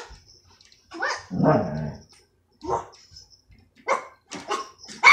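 Pet dog barking: a longer bark about a second in, a single bark, then a quick run of short barks near the end. The dog is barking at its owner while being pushed to get up and dressed in clothes.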